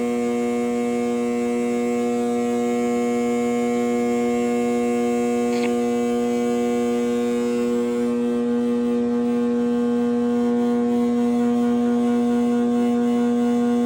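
Steady electrical hum of a 12 kW metal halide lamp on its magnetic ballasts, running at about 6 to 7 kW as the arc warms up. A single light click about halfway through.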